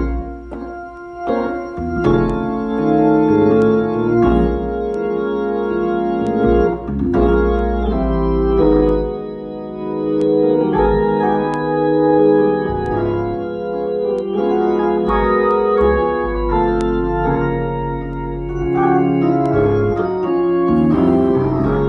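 Organ sound played on an electronic keyboard: sustained chords that change every second or so over low held bass notes.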